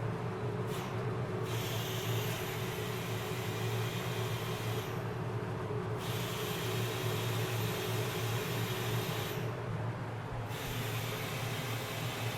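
Power sander running on a curb-rashed wheel rim, sanding down the chipped area, with a steady hum under a hissing sanding noise that breaks off briefly twice.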